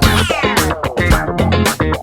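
Background music with a steady beat, guitar and bass, with a falling pitch sweep just after it begins.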